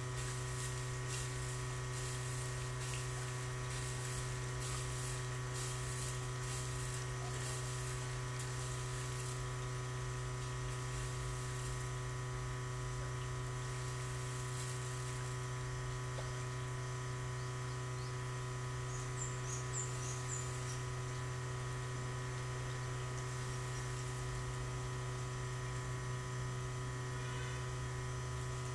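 Steady electric hum, one low drone with several fainter steady tones above it, unchanging throughout.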